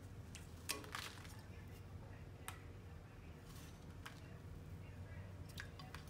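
Quaker parrot bathing in a water bowl: short, faint splashes at irregular intervals, the strongest about a second in.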